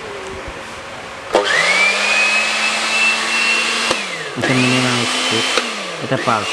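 850-watt electric spice grinder's motor switched on in pulses. It starts sharply about a second in with a rising high whine, holds at full speed for a couple of seconds and spins down. It is then pulsed again twice, each time whining up and winding back down.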